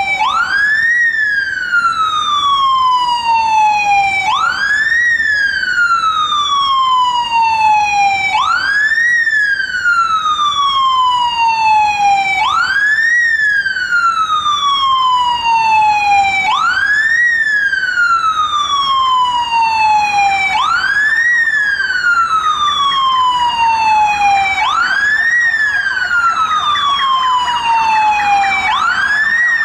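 Police siren on a slow wail: each cycle rises quickly and falls slowly, repeating about every four seconds. Near the end a second siren with a much faster warble joins in.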